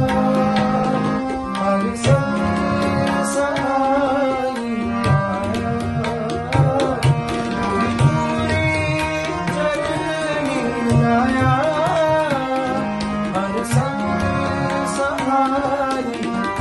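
Rina Company harmonium with two banks of Khalsa reeds and a bass coupler playing a melody of sustained reedy chords, accompanied by tabla beating a steady rhythm.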